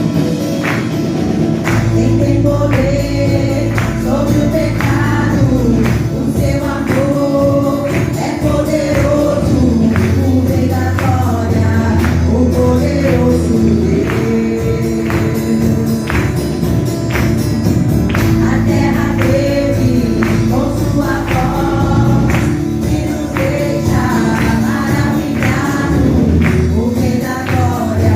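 Gospel worship song: voices singing a melody over a band with bass and a steady percussive beat.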